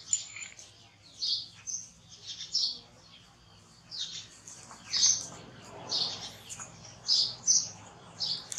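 A baby macaque squeaking: about ten short, high-pitched squeaks at irregular intervals, some with a quick downward tail.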